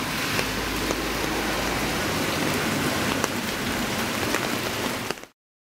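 Steady rain falling, an even hiss dotted with the small ticks of single drops landing. The sound cuts off abruptly about five seconds in.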